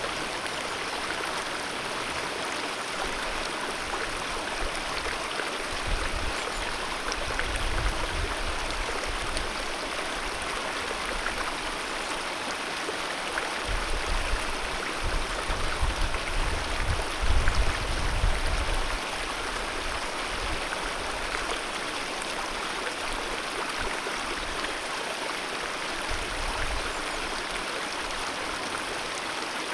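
Alpine mountain river rushing steadily, a dense even hiss of flowing water. A deep low rumble swells up under it twice, the second time longer and louder, in the second half.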